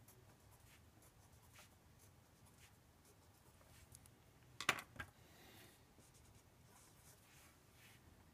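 Felt-tip marker strokes scratching faintly on paper as lines and arrows are drawn. About halfway through come two sharp clicks, a third of a second apart.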